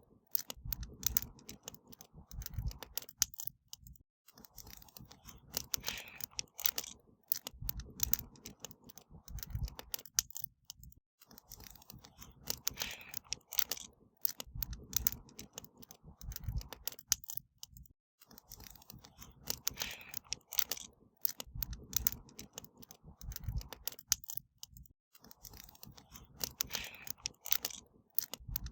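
Wood bonfire crackling: a dense run of irregular pops and snaps with low thuds from the burning wood, easing into short lulls about every seven seconds.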